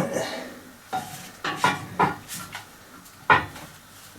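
Steel parts of a hydraulic press's movable plate knocking and clinking together as they are handled and a small clamp is set on them: about half a dozen sharp metallic knocks, the loudest about three seconds in.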